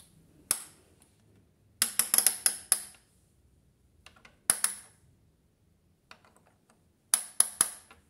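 Program selector dial of a toy AEG Öko-Lavamat washing machine turned by hand, clicking through its settings in short runs of sharp clicks with pauses between.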